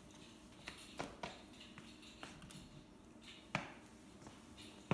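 Quiet room tone broken by a few faint, short clicks and knocks, the sharpest about three and a half seconds in.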